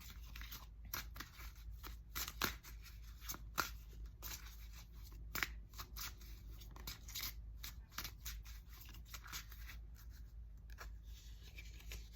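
A deck of oracle cards being shuffled and handled by hand: an irregular run of crisp card clicks and rustles.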